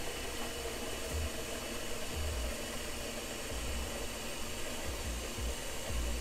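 Hot water running from a kitchen tap into a large stockpot, a steady rushing pour as the pot fills.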